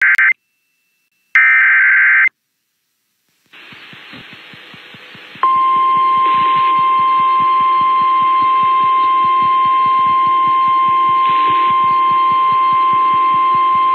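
Emergency Alert System alert for a severe thunderstorm warning, broadcast on an FM radio station. Two short screechy bursts of the digital alert header come first, then after a pause a hiss with an even pulsing underneath. About five seconds in, a single loud, steady high alert tone starts and holds.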